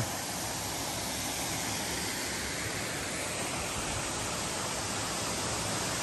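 Small waterfall and creek running, a steady even rush of water.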